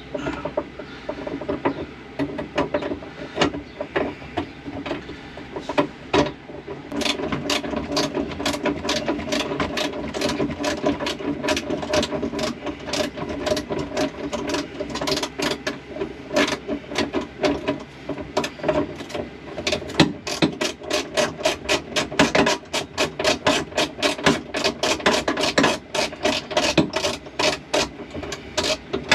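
Hand ratchet clicking as a bolt is run into a seat belt anchor hole: a few scattered clicks at first, then a steady quick run of clicks from about seven seconds in.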